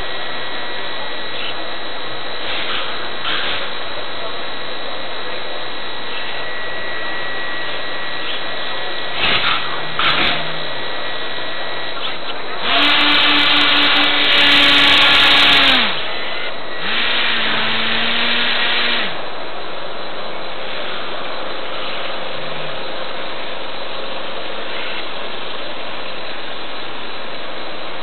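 A radio-controlled blimp's propeller motors, heard from its own onboard camera, whirring up twice for about three seconds and two seconds, the second time lower in pitch, over a steady hiss. A couple of light knocks come shortly before the first burst.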